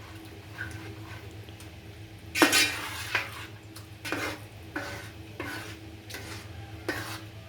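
A spoon stirring jackfruit payasam in a cooking pot, scraping and knocking against the pot about every three-quarters of a second from about two seconds in, over a steady low hum.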